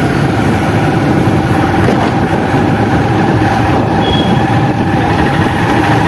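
Hero Honda motorcycle's engine running steadily while being ridden at low speed, with wind and road noise on the microphone.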